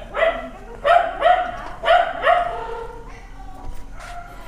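Several house dogs barking in alarm at a stranger at the gate: about five barks in quick succession in the first two and a half seconds, then fainter ones.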